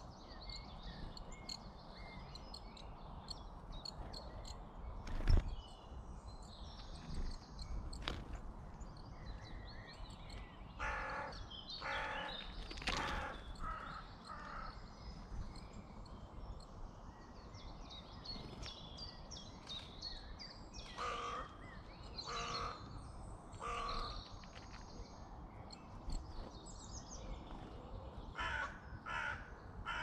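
Woodland birds calling: small birds chirping throughout, and a larger bird giving loud calls in runs of three or four, three times over. One sharp thump about five seconds in.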